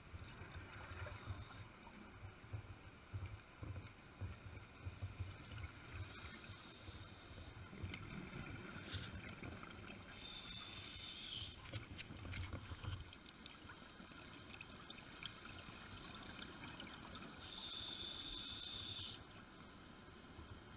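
Scuba diver breathing through a regulator underwater: a hissing breath about every four to seven seconds, with a low bubbling rumble between breaths.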